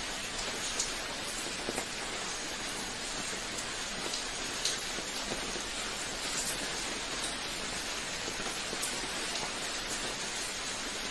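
Steady rain falling, an even hiss with the odd individual drop standing out as a short tap.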